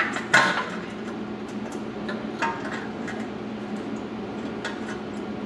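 Metal exhaust parts knocking and clanking as they are handled and test-fitted: a few sharp knocks, the loudest about a third of a second in with a short metallic ring, and lighter ones later, over a steady low hum.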